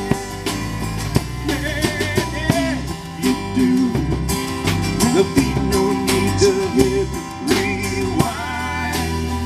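Live acoustic band playing a song: banjo, acoustic guitar, upright bass and drum kit, with a steady beat.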